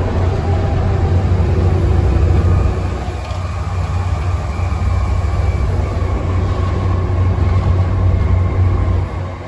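Volvo B7TL double-decker bus's six-cylinder diesel engine running hard under load, heard from inside the bus as a loud, deep steady drone with a fainter whine above it. The engine sound drops away sharply near the end.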